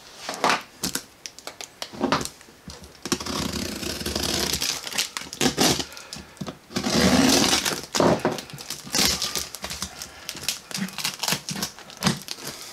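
Clear plastic wrap on a cardboard shipping box crinkling and crackling as hands press on and handle the box, with many small sharp clicks and rustles. It is densest in the middle.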